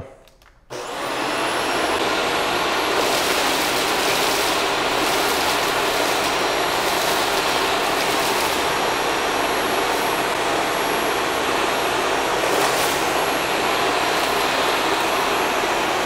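Shark Stratos upright vacuum cleaner switched on about a second in, its motor spinning up with a rising whine and then running steadily in its hard-floor setting. A few brief crackles come as it sucks up cereal from tile.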